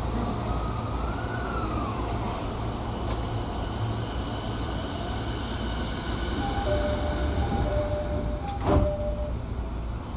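Running noise inside a JR 209 series electric train's motor car: a steady low rumble of wheels on rail, with the traction motor whine rising and then falling in pitch near the start. Steady whining tones come in later, and there is one sharp knock about nine seconds in.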